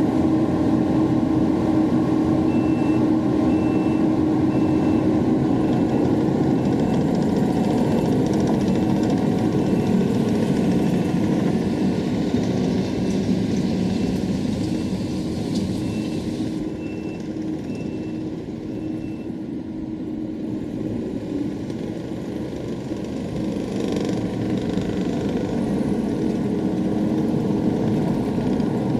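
Heavy equipment engine running steadily at work while a reversing alarm beeps at an even pace as the machine backs up; the beeping stops and the engine eases off for a few seconds about two-thirds of the way through before picking up again.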